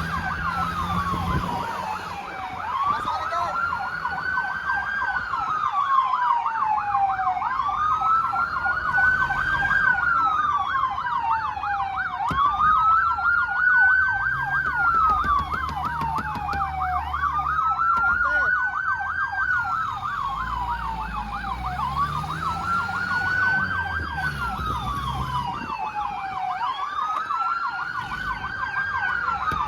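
Fire truck sirens: one wails, rising and falling in slow cycles about every five seconds, while a second yelps rapidly over it. A vehicle engine rumbles beneath.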